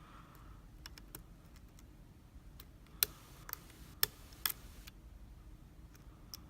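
Lock pick working the pins inside a small Abus/Brady 71/40 lockout padlock: a scattering of light, irregular clicks, with three louder ones about three, four and four and a half seconds in.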